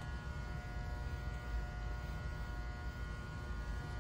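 A steady machine hum with a constant low rumble underneath, unchanging throughout.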